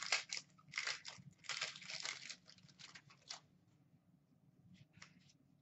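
A hockey card pack's wrapper being torn open and crinkled, in several quick bursts over the first three and a half seconds, then a few faint ticks near the end.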